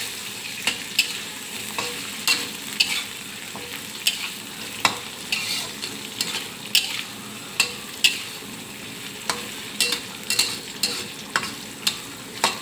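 A spatula scrapes and clinks irregularly against a metal wok while garlic, bird's-eye chilies, galangal and bay leaves sizzle steadily in hot oil, being sautéed until fragrant.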